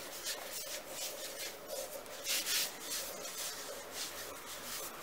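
A bare hand rubbing oil over a wooden board: a series of soft, irregular swishes of palm and fingers sliding across the oiled wood.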